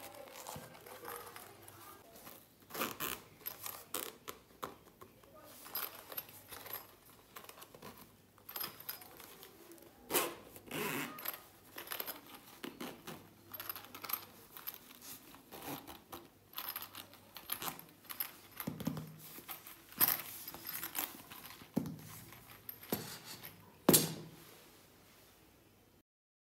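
Hands handling hard-shell zippered pencil cases: irregular clicks, taps and rustles of the moulded shells and their metal zip pulls, with a sharp click near the end before the sound cuts off.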